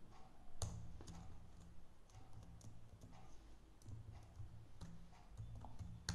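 Computer keyboard typing and mouse clicks: scattered single clicks, with a louder one about half a second in and another at the very end, over a faint low hum.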